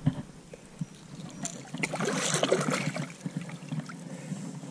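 A hooked saratoga splashing and thrashing at the water's surface beside the bank, with trickling and sloshing water that is loudest about two to three seconds in.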